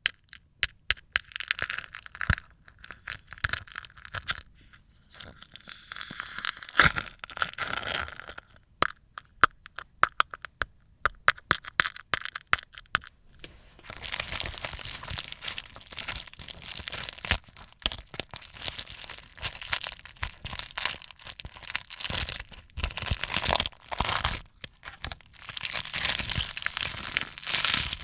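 Dried slime film being peeled off a plate, crackling and tearing away. Scattered sharp crackles for the first half, then a denser, near-continuous crackling from about halfway.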